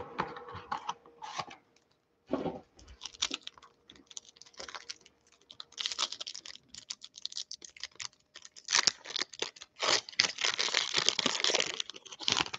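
Gold foil trading-card pack (Panini Plates & Patches) crinkling in the hands and being torn open: irregular crackling and sharp clicks, busiest near the end.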